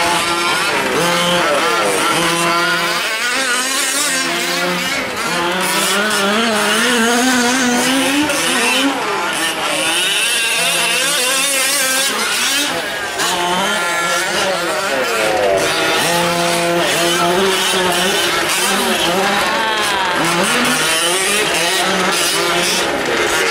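Several 1/5-scale gas RC trucks racing, their small two-stroke engines revving up and down constantly. Their overlapping pitches rise and fall as they accelerate and back off through the turns.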